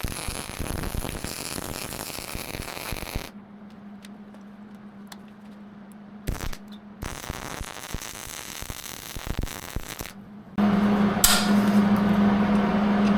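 MIG welder crackling as a nut is welded onto a broken-off bolt in a cast iron engine block, heard in short cut-together stretches over a steady low hum.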